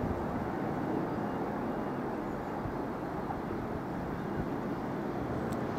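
Steady outdoor urban background rumble of distant traffic, even throughout with no distinct events and no train passing.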